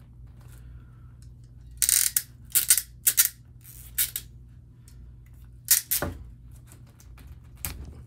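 RJ45 crimp tool working on the end of a Cat 6 network cable: a string of sharp clicks and scraping as its blade closes on the cable and the outer jacket is cut and pulled off.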